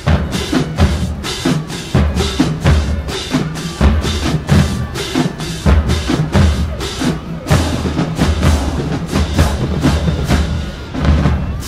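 Marching band drumline playing a fast cadence: dense, sharp drum hits over deep, rhythmic bass drum strokes, cutting off near the end.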